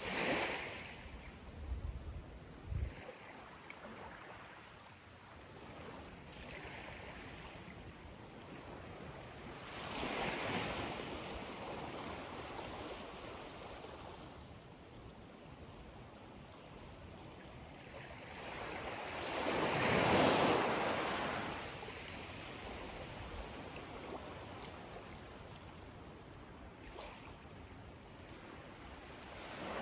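Small waves lapping and washing up a sandy shore on a calm bay, rising and falling in slow surges about every ten seconds, the largest about two-thirds of the way through. A few low bumps of wind on the microphone near the start.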